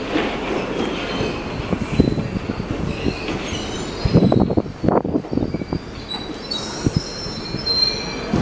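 London Underground 1973 Stock Piccadilly line train pulling into the platform and slowing to a stop. Its wheels knock over rail joints, most around four to five seconds in, and a thin high squeal rises from the wheels and brakes near the end.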